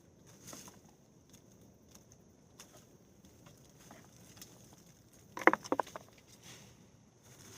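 Digging by hand in a raised garden bed: soft rustling and scraping of soil and vines, with a quick run of sharp knocks about five and a half seconds in.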